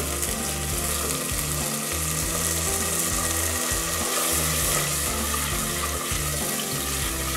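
Water poured from a clay jug into hot oil and masala in a clay pot, sizzling, then stirred with a wooden spoon as the sizzle goes on. Background music plays underneath.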